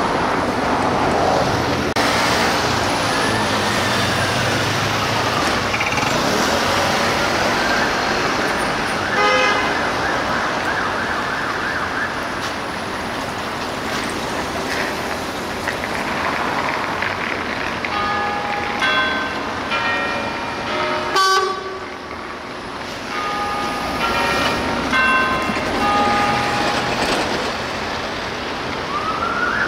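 Emergency vehicle sirens and horns over road traffic. A siren wails slowly up and down early on, a short horn blast sounds about nine seconds in, and a run of short horn blasts comes between about 18 and 26 seconds. A new siren rises near the end.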